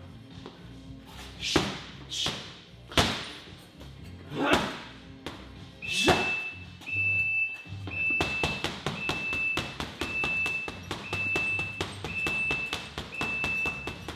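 Background electronic music: several falling swoosh-like sweeps, then a repeating high beep over a bass pulse. From about eight seconds in, a fast, dense run of light taps joins it.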